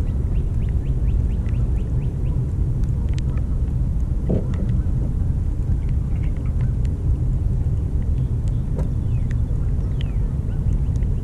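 Wind buffeting the camera's microphone: a steady low rumble with no let-up, with faint short high chirps scattered through it.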